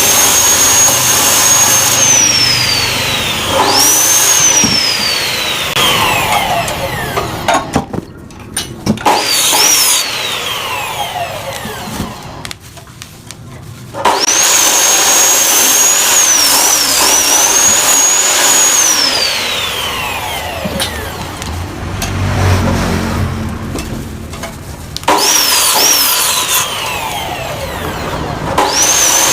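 A handheld electric power tool's motor whining at a high pitch. It is repeatedly switched off and winds down in long falling glides, then switched back on, several times over.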